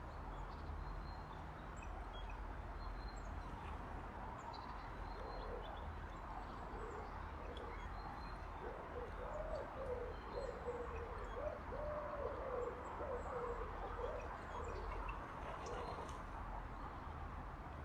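A pigeon cooing in a run of low, repeated, wavering phrases from about five seconds in until near the end, with faint high chirps of small birds such as tits over a steady background hiss and rumble.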